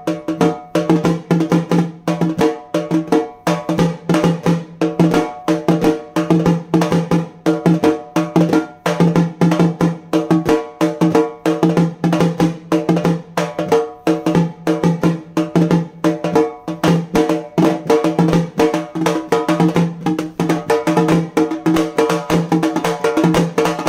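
Halgi, a Maharashtrian frame drum beaten with two sticks, played in a fast, unbroken rhythm: rapid sharp strokes over a ringing drum-skin tone.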